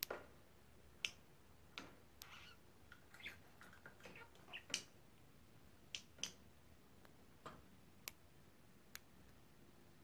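Faint, scattered sharp clicks and taps, about ten in all and unevenly spaced, from a rosy-faced lovebird in its wire cage.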